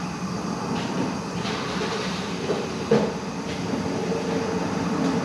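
Steady mechanical rumble and hum, with a few light knocks and a sharper clunk about three seconds in as tools and parts are handled under the car.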